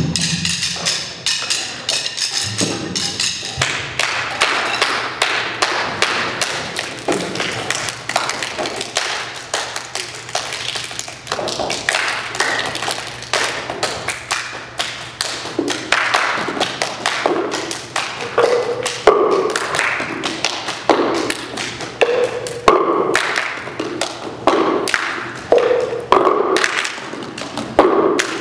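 Found-object percussion ensemble playing a fast, driving rhythm of stick taps, hand claps and knocks. A high ringing sounds in the first few seconds. Later, plastic cups knocked on a hard floor add a repeating pattern of hollow, pitched knocks.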